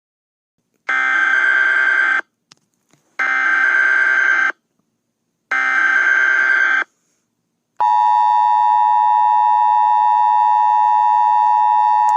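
Emergency Alert System audio: three short bursts of the digital SAME header, each just over a second long with about a second's gap between them. About eight seconds in, the steady, piercing two-tone EAS attention signal begins.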